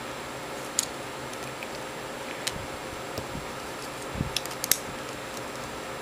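Small screwdriver working tiny screws out of a plastic Photon keychain light: a few light, sharp clicks of the tool against the housing, with a quick cluster of them about four and a half seconds in, over a steady background hiss.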